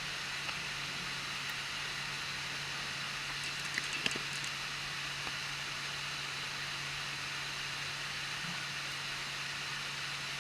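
Anycubic i3 Mega 3D printer running with a steady fan hiss and motor hum, broken about four seconds in by a short cluster of sharp clicks from the extruder. The clicks are the extruder's feed gear skipping on the filament instead of pushing it through.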